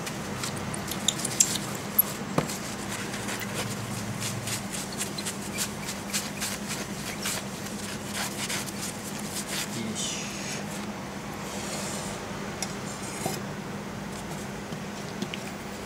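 Tissue pad wiping and polishing a black photographic plate: a long run of quick rubbing strokes with small clicks and taps, over a faint steady hum.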